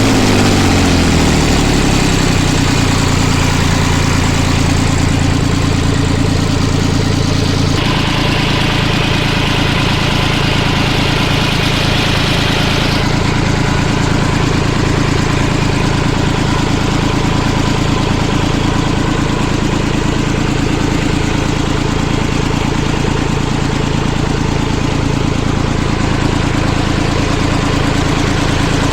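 International 484 tractor engine idling steadily, its pitch dropping in the first couple of seconds as the revs settle.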